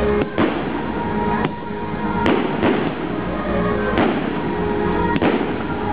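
Aerial fireworks going off: several sharp bangs at uneven intervals, some followed by a crackling smear, with music playing underneath.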